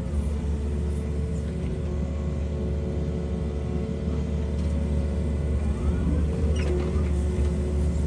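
Engine running steadily with a low drone, and a few faint short clicks or squeaks about six and a half seconds in.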